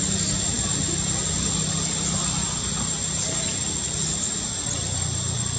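A few faint high-pitched squeals from a baby macaque crying, over a constant low rumble and a steady high-pitched drone.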